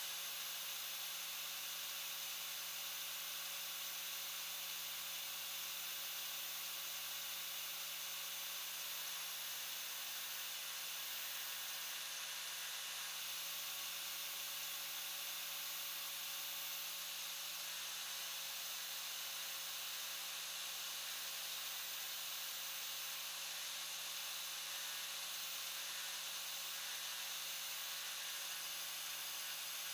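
Angle grinder running steadily with a brass spoon lure blank held against its spinning flat disc: a constant motor whine under an even grinding hiss.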